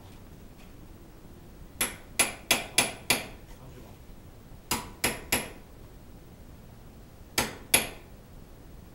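Ringing hammer blows on metal: a quick run of five strikes, then three, then two.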